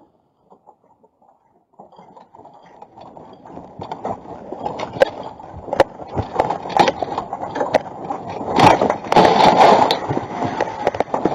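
Earthquake shaking a shop's stockroom: a rumble builds from about two seconds in, with shelves and stock rattling and clattering and many sharp knocks, growing loudest near the end.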